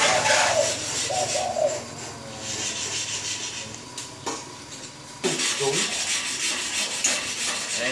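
Rasping scrape of a hand tool worked in quick repeated strokes on small pieces of mother-of-pearl shell. It is quieter in the middle and louder again from about five seconds in.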